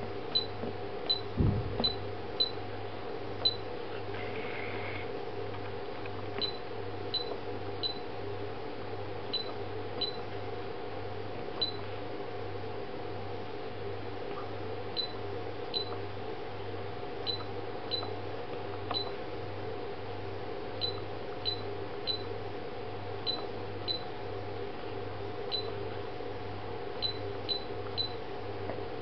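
Tekelek ECO Water Monitor giving short, high key-press beeps as its buttons are pressed to step through the setup settings, irregularly, about one a second, often in quick runs of two or three. A steady low hum runs underneath.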